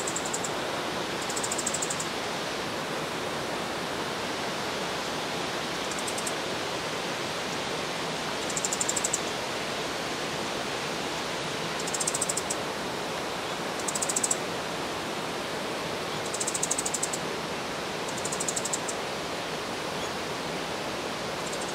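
Small songbird, which the uploader takes for a leaf warbler, giving short, high-pitched rapid ticking calls about every two or three seconds, each lasting under a second, over a steady rushing background. The uploader takes the calls for alarm or threat calls, perhaps near a nest.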